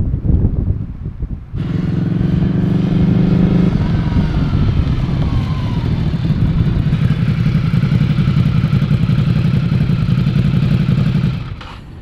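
Ducati Scrambler Desert Sled's 803 cc air-cooled L-twin, fitted with a Termignoni exhaust, running steadily as the bike rides slowly up close. It comes in about a second and a half in and drops away near the end.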